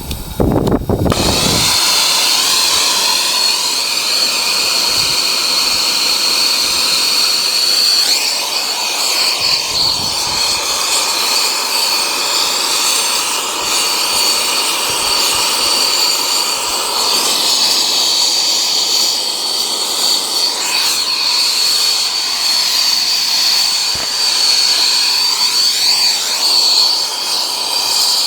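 Nitrogen blasting out through a 4-ton American Standard evaporator coil, blowing it out: a loud, steady hiss with a high whistling tone. The coil is being purged of oil and debris.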